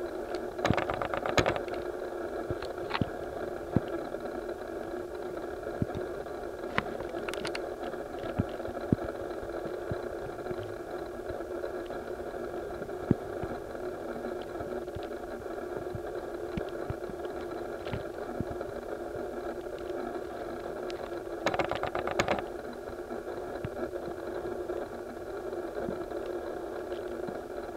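Steady mechanical hum with many faint scattered clicks, and two brief louder bursts of noise, one about a second in and one about 22 seconds in.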